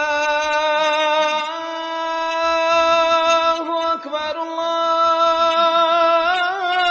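A single voice chanting 'Allah' as one long sung note, held steady on one pitch for several seconds, then breaking into ornamented wavering turns near the end.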